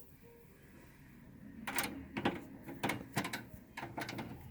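A screw being driven with a screwdriver into the metal latch of a desktop computer case: a run of irregular metallic clicks and scrapes, starting about a second and a half in.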